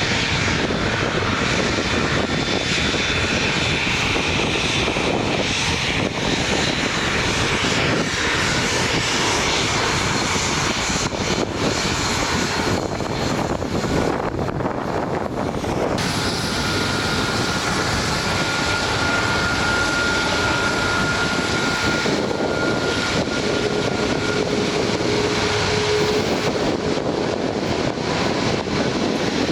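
Jet engines of an Airbus A330-300 with Rolls-Royce Trent 772B-60 engines, a steady rush of jet noise with faint whining tones that shift in pitch over the time.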